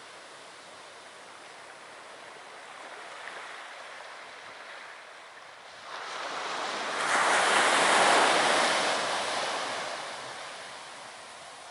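Surf on a sandy beach: a low, steady wash, then a wave breaks and surges up the shore about halfway through, swelling to its loudest and fading away before the end.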